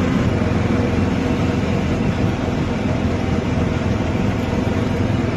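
Steady rumble of a golf cart driving over grass, with wind buffeting the microphone.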